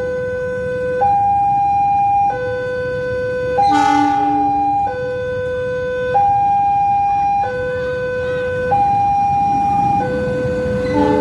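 Railway level-crossing warning alarm alternating two electronic tones, a low one and a high one, each held for about a second and a quarter, signalling an approaching train. About four seconds in, a chord of several horn tones sounds over it for about a second. The rumble of the approaching CC 206 diesel locomotive builds near the end.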